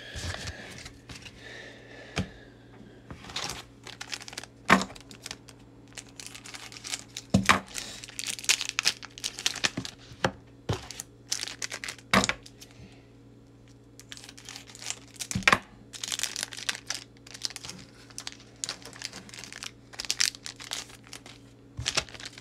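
Foil Pokémon booster pack wrappers crinkling and tearing open, with cards being handled. Sharp snaps and clicks are scattered throughout, in among stretches of dense crinkling.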